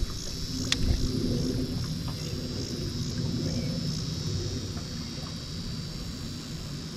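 Wind rumbling on the microphone, with insects droning high and steady in a pulse of about two beats a second. A single sharp click sounds about a second in.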